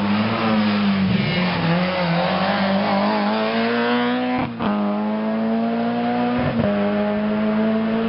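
Peugeot 306 rally car accelerating hard past at close range. The engine note climbs steadily through the revs, broken by two quick upshifts, one about halfway through and one about three-quarters of the way through.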